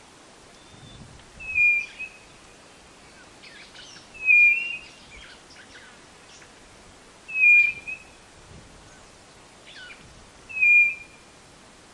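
White-bellied nothura (codorna-do-nordeste) calling: a short whistled note repeated four times, about every three seconds. Faint chirps of other birds come between the calls.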